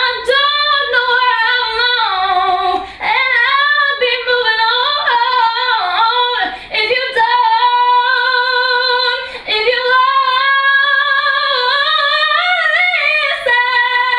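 A woman singing unaccompanied in a high voice, with long held notes that waver in pitch and quick runs between them, broken by a few short breaths.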